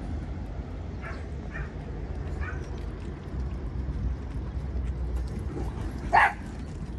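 Dogs in a group: three short faint yips early in the first half, then one loud, sharp bark about six seconds in, over a steady low rumble.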